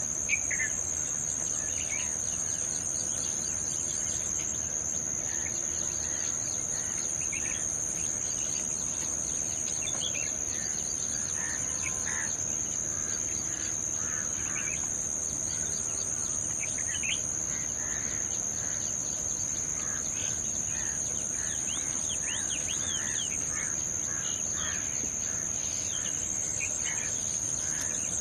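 Steady high-pitched drone of insects, the loudest sound throughout, with short bird chirps and twitters scattered over it, more of them in the second half.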